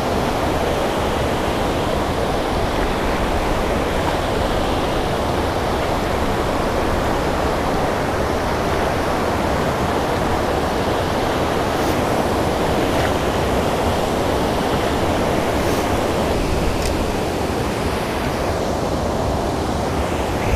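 Steady rush of fast, turbulent river water flowing below a spillway, with a few faint ticks in the second half.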